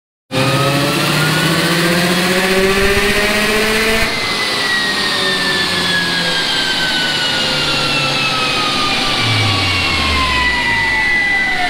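Turbocharged Subaru EJ205 flat-four running a dyno pull: it climbs through the revs under boost for about four seconds, then the throttle shuts and the engine and rollers wind down, the pitch falling steadily, with a steady whine coming in near the end. Heard as the classic Subaru wastegate flutter, which is typical of the external wastegate opening and closing right at its threshold.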